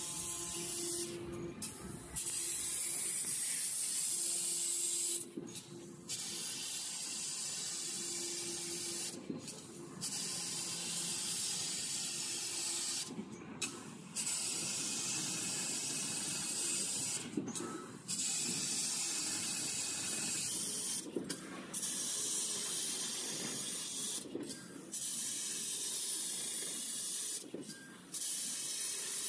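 Fiber laser cutting machine cutting 3 mm mild steel sheet: a steady hiss of assist gas from the cutting head, broken by short gaps about every three to four seconds.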